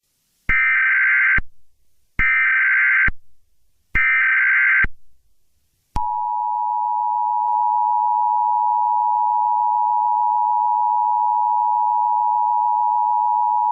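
Emergency Alert System tones: three short bursts of warbling digital header tones, each just under a second, then about six seconds in the steady two-tone EAS attention signal begins, announcing that an emergency alert message follows.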